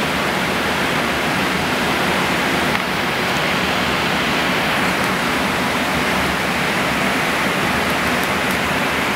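Steady rushing noise on the flight deck of a Boeing 777-300ER in cruise: airflow around the nose and the cockpit ventilation, with no changes.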